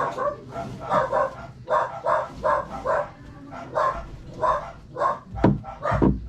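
A dog barking over and over, about two barks a second, with two sharper, louder barks near the end.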